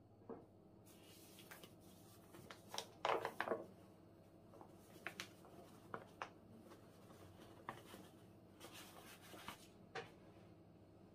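Quiet handling noises on a wooden table: a few sharp taps and clicks, loudest in a quick cluster about three seconds in, and soft rustling from a paper flour bag as flour is poured out.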